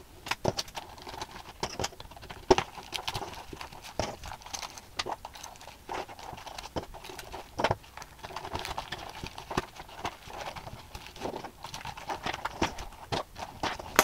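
Small metal and plastic items, such as a multitool, lip balm and a binder clip, clicking and tapping irregularly as they are packed by hand into a fabric zipper pouch, with soft rustling between the clicks.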